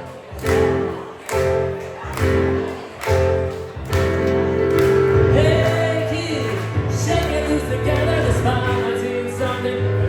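Live music with a singer, loud amplified performance: chords struck about once a second for the first few seconds, then held notes with a singing voice over them.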